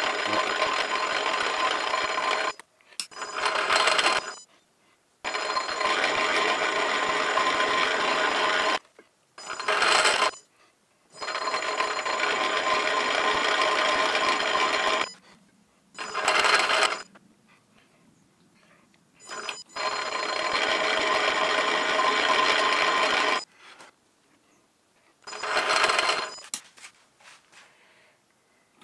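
Small metal lathe running in back gear with a steady whining hum, started and stopped again and again during single-point thread-cutting passes. Runs of three to four seconds alternate with short runs of about a second, with quiet pauses between them.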